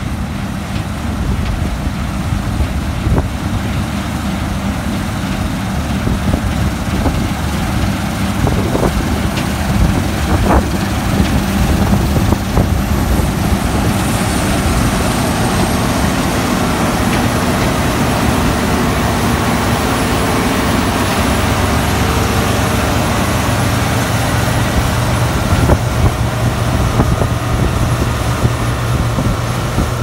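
Claas Lexion 660 combine harvester at work cutting barley: a steady engine and threshing drone that grows louder in the second half as the machine passes close by, with a thin high whine joining in about halfway through.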